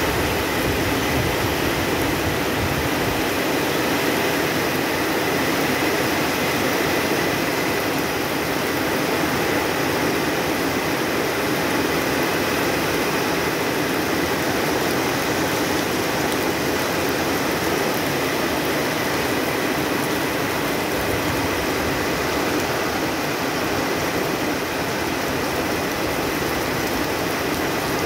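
Heavy tropical downpour: rain falling steadily on foliage and ground, an even, unbroken hiss.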